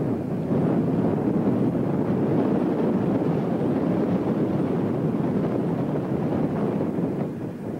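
Steady wind noise buffeting the camcorder microphone, a dense rumbling hiss that eases a little near the end.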